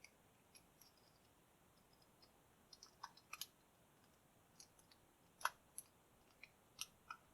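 Faint, scattered metallic clicks of a lock pick working the pins inside a Master Lock 716D's keyed cylinder, irregular and a few at a time, the sharpest about five and a half seconds in.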